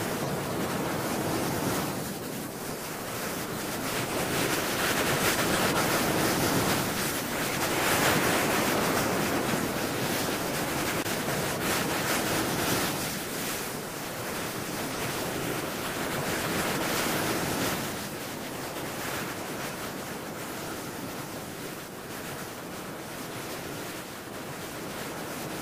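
Ocean surf: waves breaking and washing up a beach, the rush of water swelling and falling back every few seconds.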